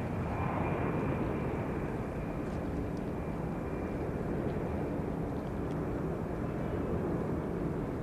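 Jet engines of a Boeing 767-300 airliner on its landing approach: a steady rumbling roar, with a thin high whine that fades about a second in.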